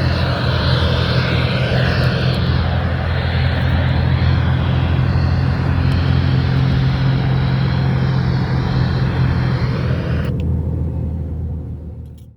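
Weather radio receiver static: a steady hiss over a low electrical hum. About ten seconds in the hiss cuts off sharply, and the hum then fades out to silence.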